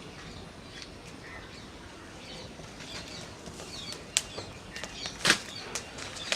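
Birds chirping over steady background noise, with a few sharp knocks in the second half, the loudest about five seconds in.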